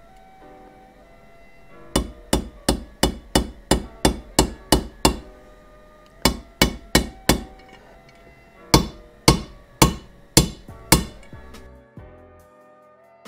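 Metal hammer blows tapping a bearing into its bore in a Yamaha YZ426F engine case, about three sharp strikes a second in three runs separated by short pauses. The bearing needs driving in because the case was not hot enough for it to drop in.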